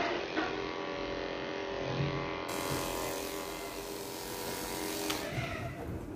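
Corded electric pet clippers running with a steady buzz while shaving a cat's fur. The buzz changes about five seconds in, and a few clicks follow.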